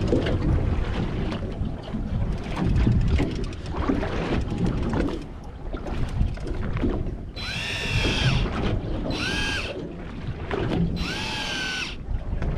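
Rumbling wind and sea noise on the microphone. It is followed by three short bursts of an electric deep-drop fishing reel's motor winding line, each starting with a rising whine and then holding its pitch.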